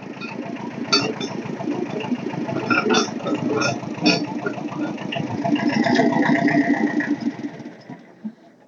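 Small Kubota diesel machine's engine running with a steady chugging pulse. Several sharp cracks and knocks come over it in the first four seconds, and a higher whine joins it between about five and a half and seven seconds in. The sound then fades away near the end.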